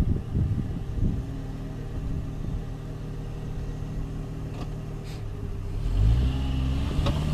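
Jeep Cherokee XJ engine idling steadily, then revving up about six seconds in, its pitch rising.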